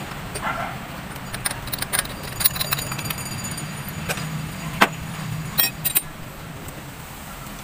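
Light metallic clicks and clinks of hand tools and small engine parts being handled during a spark plug change, scattered through the middle, the sharpest about five seconds in, over a steady low hum.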